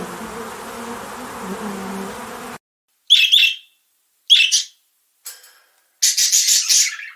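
A buzzing insect drones steadily for the first two and a half seconds, then cuts off suddenly. A bird follows with two short, high chirps about a second apart, a faint one, and then a longer, shriller call near the end.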